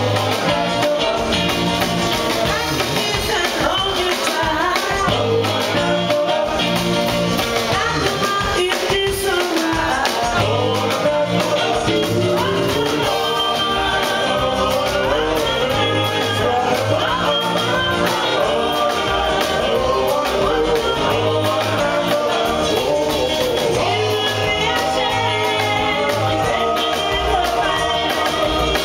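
A live band playing with a woman and a man singing lead into microphones, backed by drums and a walking upright bass; the music is steady and loud throughout.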